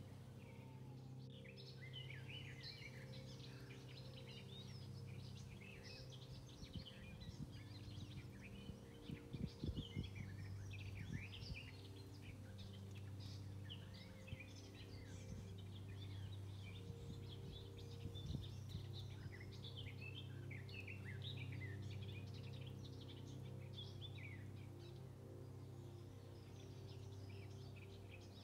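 Many birds chirping and singing in dense, overlapping short calls, over a steady low hum. A few soft knocks come about nine to eleven seconds in.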